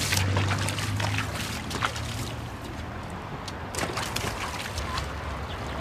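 River water flowing and trickling, with scattered small splashes and sloshes.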